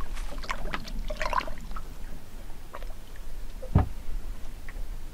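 Water splashing and trickling beside a small boat, with one dull thump against it about four seconds in.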